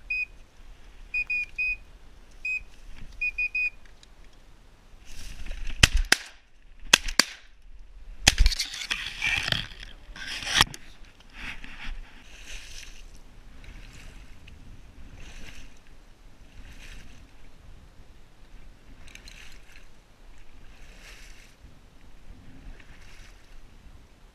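Several short high-pitched beeps, then a volley of about five shotgun shots over some five seconds, two of them in quick succession. Then rhythmic splashing and sloshing through shallow marsh water, about every second and a half.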